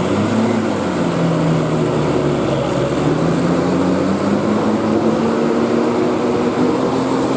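Tour bus's diesel engine pulling under load, its pitch climbing steadily as the bus accelerates.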